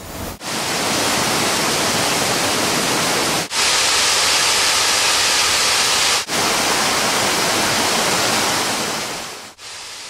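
Waterfall: falling water making a steady, loud rush, broken by two brief dips and fading out near the end.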